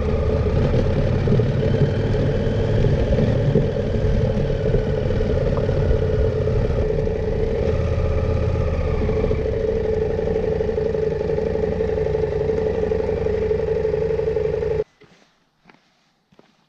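KTM 890 Adventure R's parallel-twin engine running while the bike rides along, mixed with wind and road noise. The sound cuts off abruptly near the end, leaving a few faint ticks.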